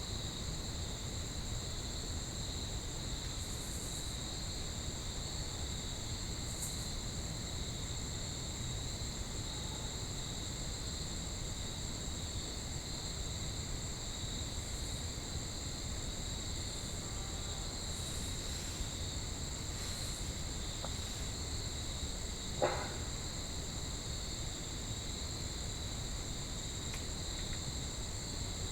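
Steady chorus of crickets, a constant high-pitched trilling, over a low outdoor rumble. About three-quarters of the way through comes one short, sharp knock.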